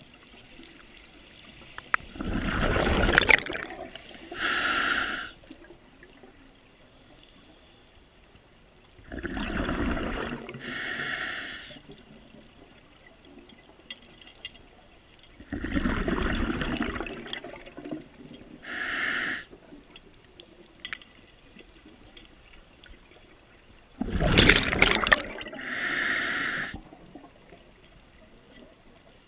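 Scuba diver breathing through a regulator underwater: four breaths about seven seconds apart, each a rush of bubbles followed by a shorter hiss.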